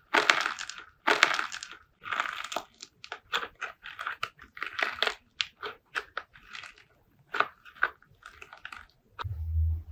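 Slime being squeezed and pressed by hand, making crackling, crunchy pops in a string of short bursts, longer at first and quicker and shorter later. Near the end a short low dull thump.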